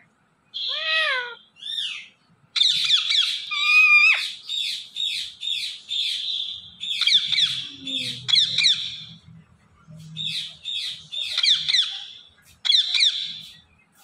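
Indian ringneck parakeet calling: a few arched squawks, then rapid runs of high chirps in bursts with short pauses between them.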